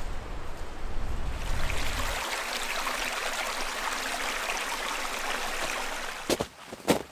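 Strong wind rushing through the trees, buffeting the microphone with a low rumble for the first two seconds before settling into a steady hiss. Two sharp crunching steps come near the end.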